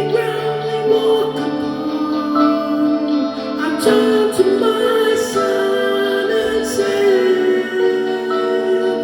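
Live band music: a slow passage of held chords with a melody line moving over them, the notes changing every second or two.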